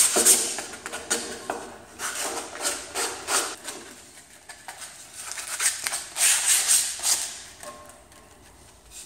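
Sandpaper rubbed back and forth by hand along the edges of a plywood push stick, taking off the sharp edges. It comes as bursts of quick scratchy strokes with short pauses between, busiest about two and about six seconds in.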